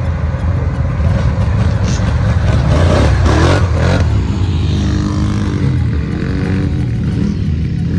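Sport quad ATV engine running, revving up briefly about three seconds in.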